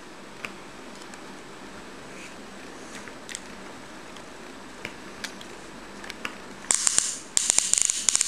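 Plastic toy front loader being handled: scattered light clicks and taps, then near the end a louder burst of rattling and scraping as its parts are moved.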